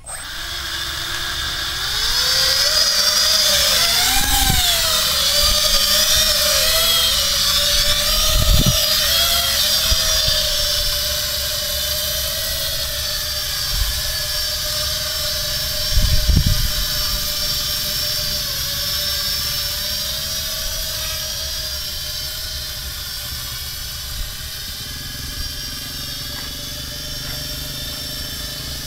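Quadcopter's four Multistar 1900kv brushless motors with three-blade 5030 propellers spinning up and lifting off. The buzzing whine rises in pitch over the first couple of seconds and wavers with the throttle, then settles into a steady hover tone that slowly fades as the craft moves away. A few brief low rumbles come through, the strongest about sixteen seconds in.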